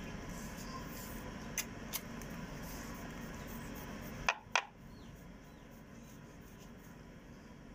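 Wooden rolling pin rolling a disc of samosa dough on a wooden board, a soft steady rubbing with a few light wood-on-wood knocks. There are two sharper knocks a little past halfway, and the rubbing is quieter after them.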